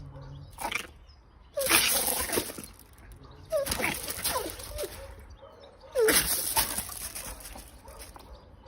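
A dog whining, in three short bouts of brief sliding whimpers, each with a hiss of noise under it.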